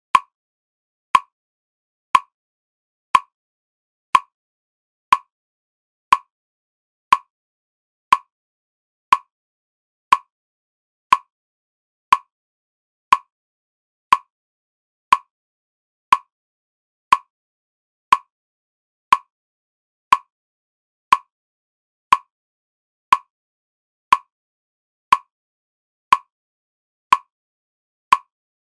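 A short, sharp plink repeated exactly once a second with silence in between: a steady timing cue for a concentration exercise.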